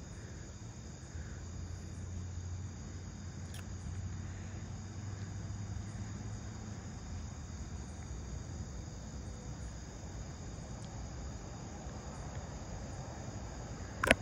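A steady chorus of crickets, several unbroken high-pitched trills, with a faint low hum under it for the first half.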